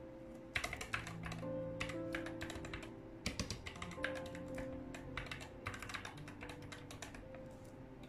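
Typing on a Gamakay MK61 mechanical keyboard with Gateron Optical Yellow linear switches: quick runs of keystrokes clacking from about half a second in, over background music.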